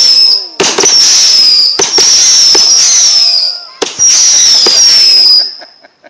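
A consumer fireworks cake firing whistling shots: four loud, screaming bursts in a row, each about a second or more long, with a high whistle that falls slightly in pitch and sharp cracks among them. It dies away shortly before the end.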